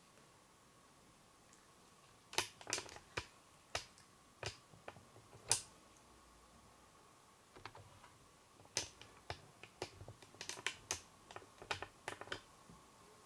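Tabby kitten licking, its tongue and mouth making a run of sharp little wet clicks in two spells, from about two seconds in and again from about eight seconds in; near the end it is licking meat juice off a plastic cutting board.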